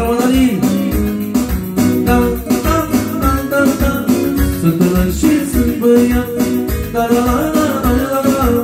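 Arranger keyboard played live through a PA speaker: a quick melody over a steady beat with bass.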